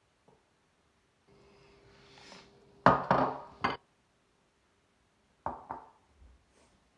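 Sharp kitchen knocks and clinks, like dishes or utensils handled on a counter. There is a quick cluster of them about three seconds in and two more near the end, with a soft hiss before the first.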